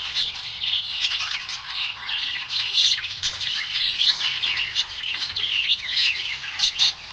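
Budgerigars chirping busily and without a break: a dense stream of short, high-pitched chirps.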